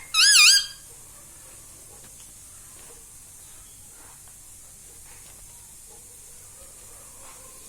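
A ringneck parrot gives one short, high, wavering call in the first half second. Then there is only a steady faint hiss.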